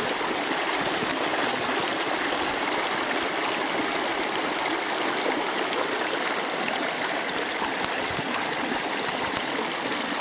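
Small snow-banked stream running, a steady rush of flowing water.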